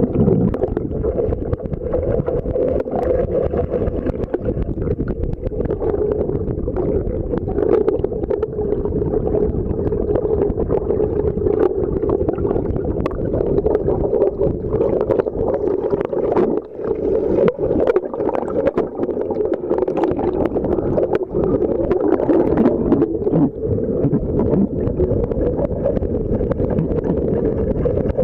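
Muffled underwater sound in a swimming pool: a steady hum and low rumble of moving water, with scattered clicks and knocks as a freestyle swimmer strokes and kicks past.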